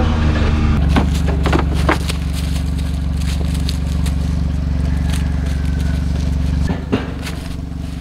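A vehicle engine running steadily. Its note shifts about a second in and eases off near the end, with a few knocks over it.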